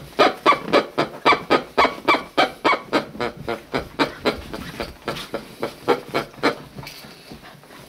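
English setter puppy barking in a fast run of short, high barks, about three to four a second, during rough play; the barking stops about six and a half seconds in.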